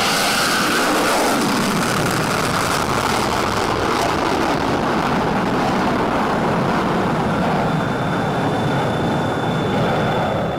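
A steady, even roar of jet engine noise with no clear rhythm, cutting away sharply at the end.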